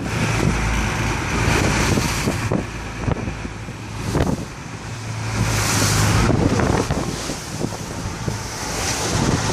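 Strong wind buffeting the microphone over rough, surging waves, with a hissing rush of water swelling about six seconds in. A steady low engine drone runs underneath.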